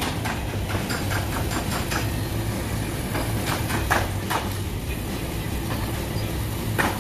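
Rattling and metallic knocks from a box truck being unloaded over a steady low hum, with a few sharper bangs about halfway through.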